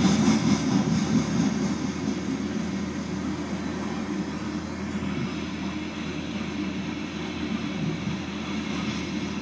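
Freight train of coal cars rolling past, a steady rumble of steel wheels on rail, a little louder in the first couple of seconds, heard through a computer's speakers.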